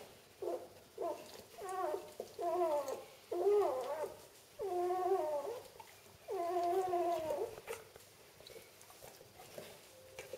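Newborn Vizsla-Labrador cross puppy crying: a run of about seven mewling cries, short at first and growing longer, that stop about seven and a half seconds in.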